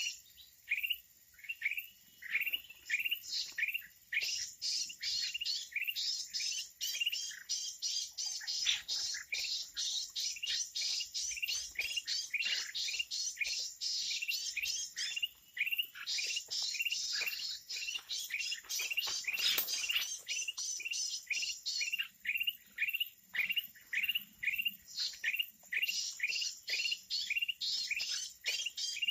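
Red-eyed bulbuls calling: a dense, continuous stream of short, quickly repeated falling chirps from several birds.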